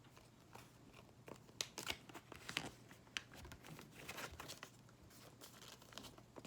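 A sheet of white computer paper rustling and crinkling as the wings of a paper airplane are folded and creased, in faint scattered crackles that are busiest about two seconds in.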